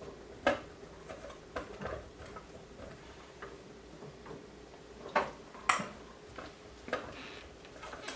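Irregular light clicks and knocks of cooking utensils against bowls and pots, over a faint steady hum.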